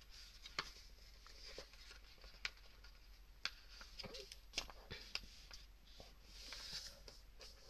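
A sheet of printer paper being folded and creased by hand: soft rustling with scattered light taps and crinkles.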